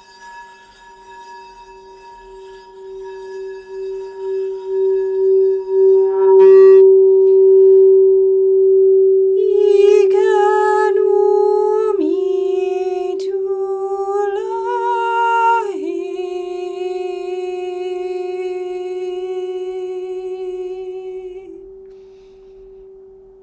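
Crystal singing bowl sounding a sustained low tone that swells with a wobbling pulse. From about ten to sixteen seconds in, a voice tones long sliding notes over it, and the bowl then rings on and fades out near the end.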